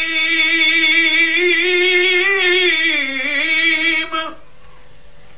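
A man's voice singing an Urdu naat, holding one long note with a wavering pitch that dips slightly near the end before stopping about four seconds in. This is followed by a short pause with only a low background hum.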